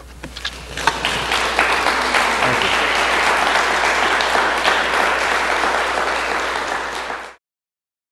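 Audience applause: a few scattered claps swell into steady clapping by a crowd, which cuts off abruptly near the end.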